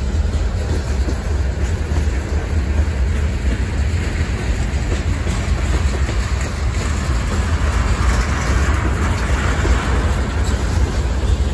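Freight train cars (covered hoppers and a tank car) rolling past on the rails: a steady, loud rumble of steel wheels on track.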